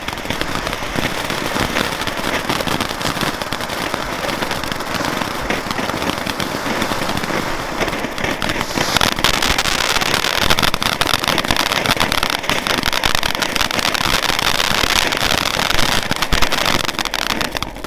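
Ground fountain fireworks spraying sparks: a steady, loud hiss thick with rapid crackling. It grows brighter and a little louder about nine seconds in.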